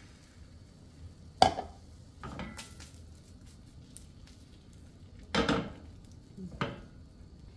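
Cookware knocks over a quiet background: a sharp knock about a second and a half in, then a clatter about five and a half seconds in as the swirled nonstick crepe pan is set back down on the gas range's cast-iron grate, and a lighter knock soon after.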